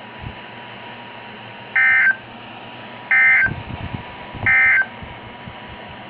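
A NOAA weather radio sounds three short, identical bursts of digital alert data, a little over a second apart, over a steady hiss. This is the SAME end-of-message code that closes an Emergency Alert System weather broadcast.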